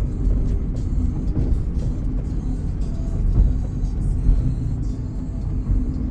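Inside the cabin of a moving Honda car: steady low engine and road rumble while driving.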